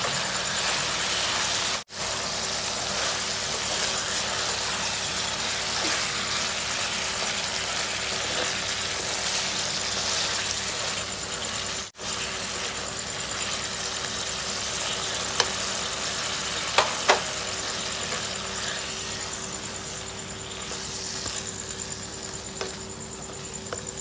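Greens and canned fish stir-frying in a wok: a steady sizzle over a steady hum, with a few sharp clicks of the spatula against the pan about two-thirds of the way through.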